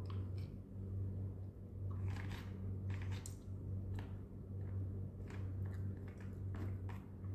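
Close-up sounds of a person eating: chewing, with scattered short clicks and scrapes of a utensil in a plastic food container, over a steady low hum.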